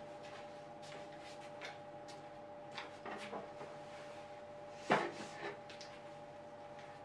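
A leather saddle in a fabric cover being handled and set down on a wooden chair: light clicks and rustling, then one louder knock about five seconds in as it lands. A faint steady hum runs underneath.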